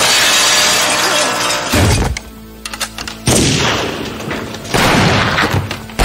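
Glass window louvers shattering, followed by several loud bangs over a tense film score, ending with a pistol shot.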